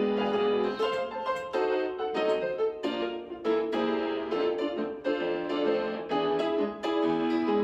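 Piano music: a run of quickly struck notes.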